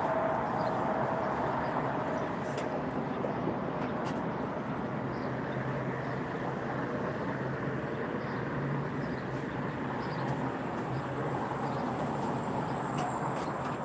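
Steady outdoor background noise with a faint low hum, and a few light clicks.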